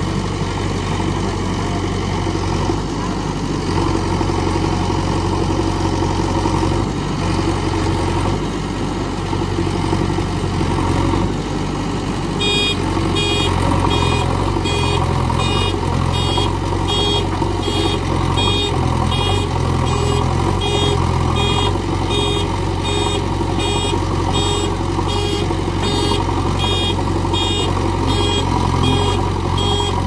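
JCB 3DX Xtra backhoe loader's four-cylinder diesel engine running steadily under load as the machine struggles through deep mud. About twelve seconds in, its reversing alarm starts beeping in a steady rhythm and keeps going over the engine.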